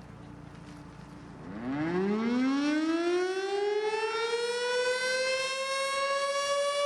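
Civil defense siren winding up: about a second and a half in it starts low and its pitch climbs quickly, then keeps rising more slowly toward a steady high wail.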